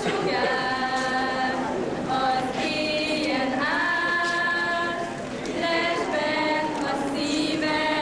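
Girls singing a song together without accompaniment, in long held notes that move in steps.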